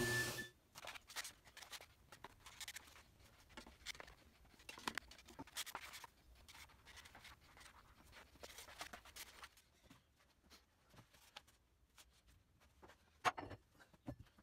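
A plastic spreader scraping adhesive across a flat sheet in faint, irregular scratching strokes. A band saw's running tone cuts off at the very start, and there is a single sharp knock near the end.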